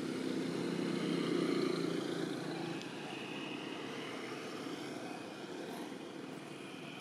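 Low, steady engine drone from a passing motor vehicle, fading after about three seconds.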